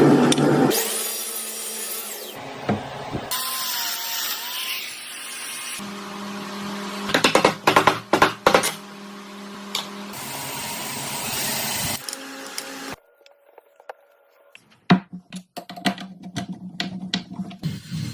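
Power tools working wood in a run of short clips that switch abruptly every second or few, some with a steady motor hum. In the last few seconds the sound drops to scattered sharp clicks and knocks.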